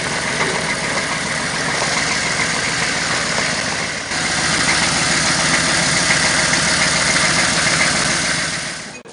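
Full-size SUV engine running at low speed while towing a sailboat on a trailer past, louder from about four seconds in as it draws close.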